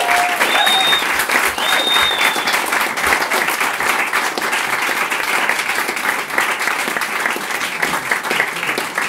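Audience applauding steadily after a song, with two short high whistles about one and two seconds in.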